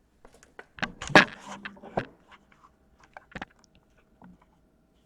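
Scattered small clicks and scratchy rustles of hands handling small objects at a workbench, densest about a second in, with a sharp click past the middle. A faint steady hum sits underneath from about a second and a half in.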